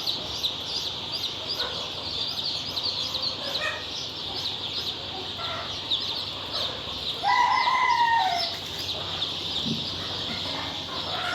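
A large flock of young Sonali chicks peeping and chirping continuously. About seven seconds in, one louder call lasting just over a second stands out above the chirping.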